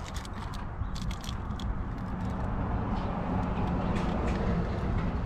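A few light metal clicks over a steady rustling, scraping haze that slowly grows louder, as the alternator is worked loose from its mounting in the engine bay.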